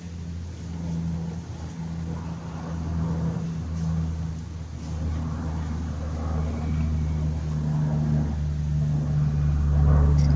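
An engine running steadily with a low hum that wavers a little in pitch, growing louder near the end.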